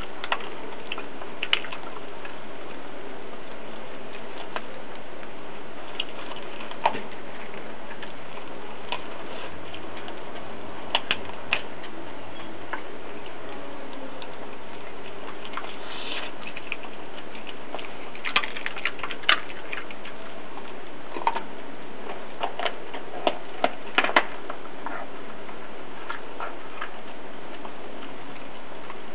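Australian cattle dog chewing at a whole raw rooster, its teeth crunching bone and pulling at the carcass, heard as irregular sharp clicks and cracks. The clicks come more often in the second half, over a steady background hiss.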